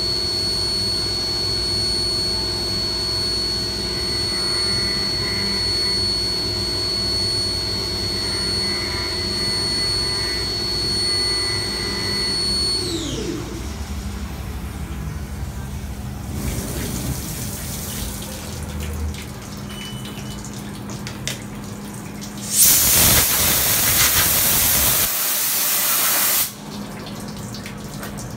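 CNC milling machine engraving an aluminium block under coolant: the spindle runs with a steady high whine, then winds down in a falling whine about halfway through. Later there is a loud hiss of spraying coolant for about four seconds, then a quieter wet rushing.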